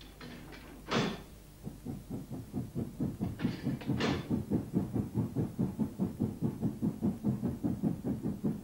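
Steam locomotive working hard up a steep bank, its exhaust beats coming in a steady rhythm and growing louder as it approaches. Two brief sharp sounds come about a second in and again about four seconds in.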